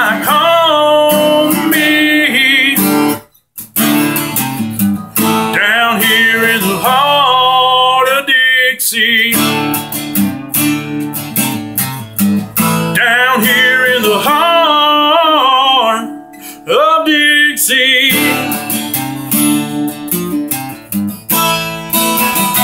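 Acoustic guitar strummed in a country song while a man sings long held notes with vibrato. The guitar drops out for a moment about three seconds in, and the playing quietens near the end.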